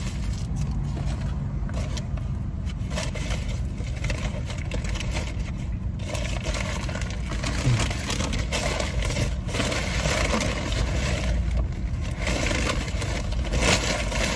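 Steady low rumble of a car's engine heard from inside the cabin, with irregular crinkling and scraping of fast-food packaging over it.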